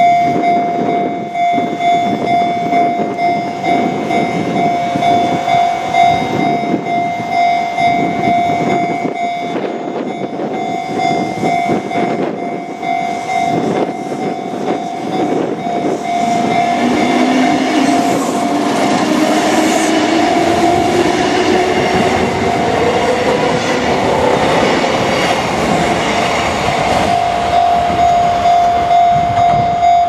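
Japanese level-crossing warning bell ringing in steady repeated strokes while a Kintetsu electric train crosses. From about halfway the train's wheel noise builds, with a whine rising steadily in pitch as it gathers speed out of the station.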